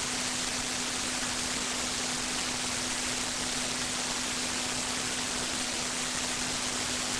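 Steady hiss, strongest in the high range, with a steady low hum underneath; it does not change.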